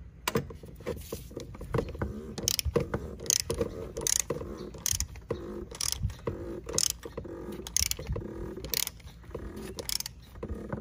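Torque wrench ratchet clicking as it is worked back and forth, tightening an oil filter housing cap with a 22 mm socket. A sharp click comes about once a second, with lighter ratchet ticks in between.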